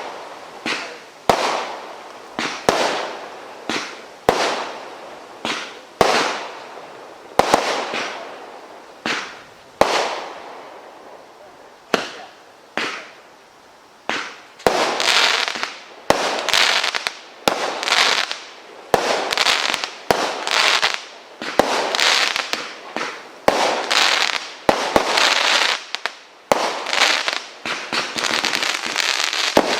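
Multi-shot firework firing a steady series of loud bangs, about one every second and a half, each followed by a fading tail. About halfway through, the shots come faster and their tails run together.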